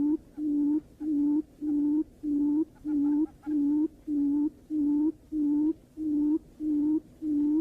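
Barred buttonquail's low hooting call, a long, even series of short hoots at one pitch, just under two a second.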